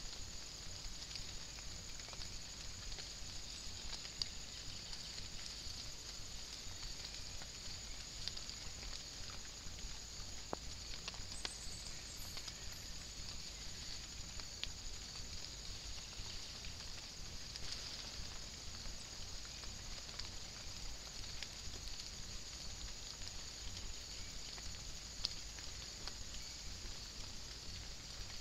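Light rain in woodland, heard through a trail camera's microphone: a steady high hiss with many faint scattered ticks of drops.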